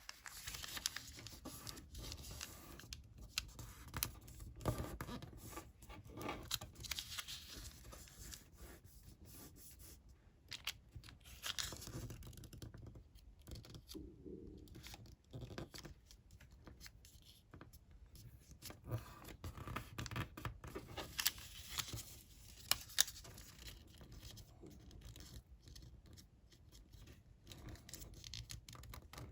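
Sheet of colored origami paper being folded by hand: irregular rustling and scraping with many short, crisp ticks.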